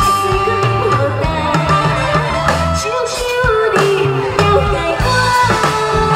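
A woman singing a song into a microphone, holding long notes, over backing music with a steady drum beat and bass.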